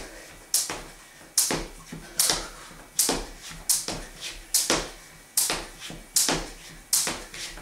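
Skipping rope slapping the floor on each turn in a steady rhythm, about one sharp slap every 0.8 seconds, about nine in all.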